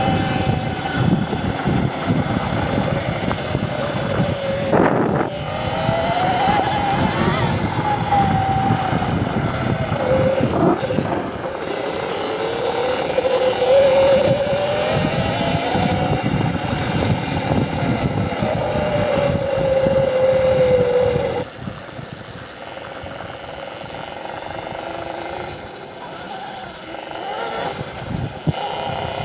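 CZEM Drill One electric dirt bike under way: its motor whine rises and falls in pitch with speed over a rough noise of wind and terrain. There is a sharp knock about five seconds in, and the sound drops noticeably in level about three quarters of the way through.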